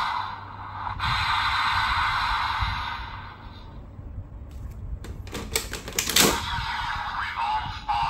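DX Desire Driver toy belt playing its electronic sound effects and voice lines, with a quick run of plastic clicks and a sharper click just past the middle as the belt is revolved.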